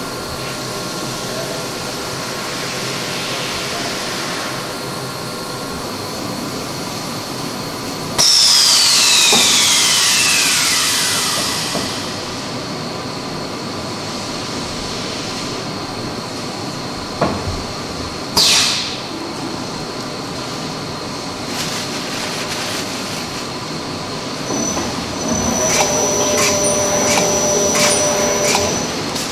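Paper converting machine for towel and napkin rolls running with a steady hum and whine. About a third of the way in comes a sudden loud burst with a whine that falls in pitch over about three seconds, later a click and a short loud hiss. Near the end new steady tones set in with regular ticking, about two a second.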